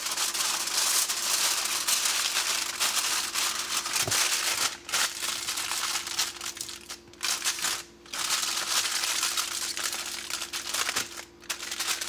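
Aluminum foil crinkling and crumpling as a foil packet is folded and crimped shut by hand, in stretches of rustling with a few brief pauses.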